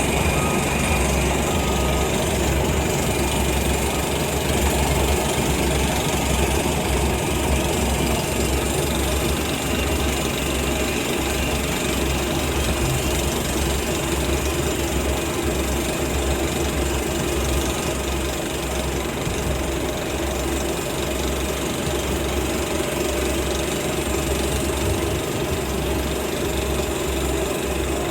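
Mining drill rig running steadily: a dense engine drone with a fast, even knocking pulse underneath.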